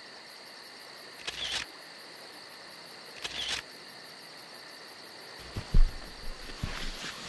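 Three slow crunching footsteps in snow, about two seconds apart, over a faint steady high whine. About five seconds in come knocks and rustling of gear being handled inside a tent, with one sharp thump.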